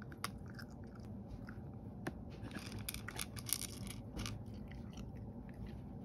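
Cat eating dry kibble from a small bowl: irregular crisp crunches, thickest about two and a half to four seconds in.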